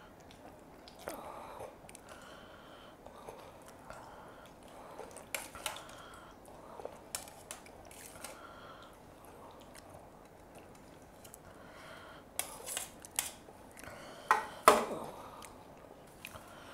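Eating by hand: chewing, with the squish of rice and fish curry mixed by fingers on steel plates, and scattered light clicks and clinks of fingers and spoon on steel. A louder metallic clank near the end, as the steel pot of curry is set down.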